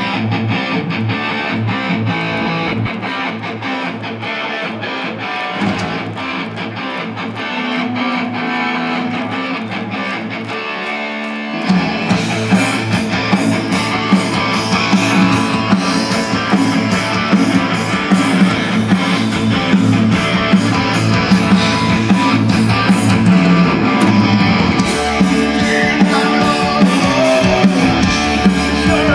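Heavy metal band playing live over a PA: a guitar intro, then drums and bass come in a little under halfway and the full band plays on, louder.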